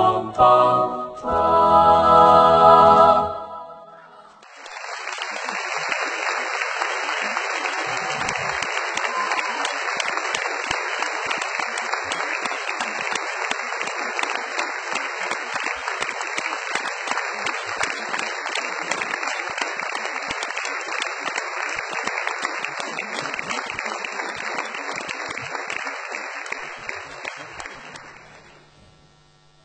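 An a cappella choir ends on a held chord that cuts off about three seconds in. Long, steady audience applause follows and fades out near the end.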